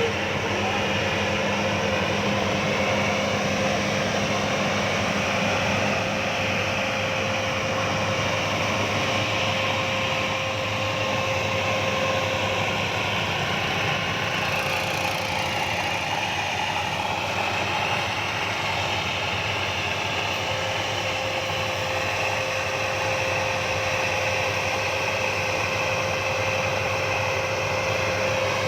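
Engine of a rice paddy machine running steadily, an even drone with a steady whine over a low hum.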